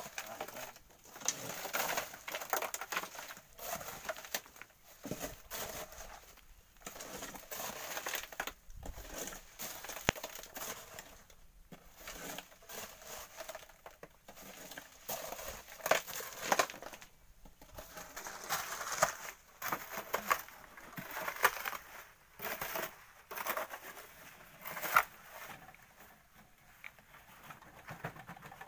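Hand digging tools scraping and scooping volcanic sand and gravel, loading a wheelbarrow, in irregular strokes with gritty crunches and knocks.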